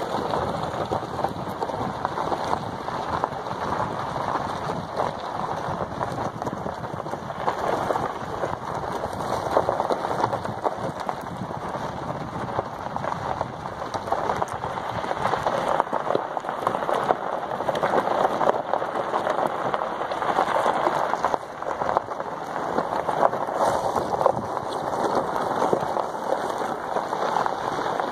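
Steady crackling, hissing noise of tyres rolling over a dirt fire road.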